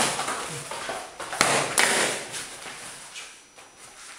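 Sharp knocks of an escrima stick striking in stick sparring: one hit right at the start, then two more in quick succession about a second and a half in.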